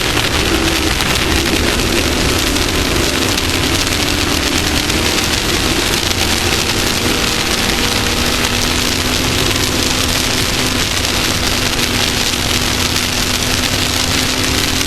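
Off-road race vehicle's engine running steadily under a heavy, even rush of wind and dirt-road noise.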